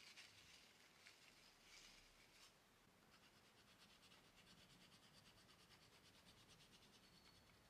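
Faint scratching of oil pastel on paper: a few separate strokes in the first two seconds, then quick, evenly repeated back-and-forth strokes from about three seconds in.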